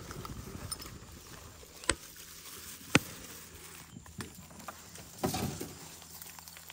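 Footsteps and small knocks, with two sharp clicks about two and three seconds in and a short rustle a little after five seconds.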